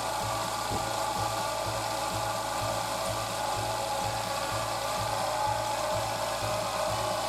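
Daihatsu Tanto's engine running, with a steady mechanical rattling whir from the accessory-belt area: the abnormal noise being traced among the A/C compressor, alternator, power-steering pump and water pump. Background music with a steady beat of about two a second plays underneath.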